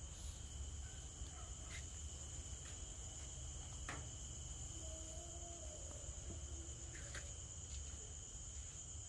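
Crickets trilling in a steady, unbroken high drone over a low rumble, with a few faint knocks.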